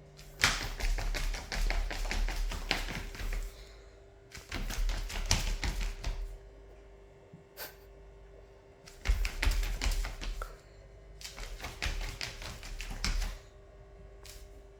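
Rapid scratchy tapping, like claws working at a surface, in four runs of two to three seconds with single clicks between.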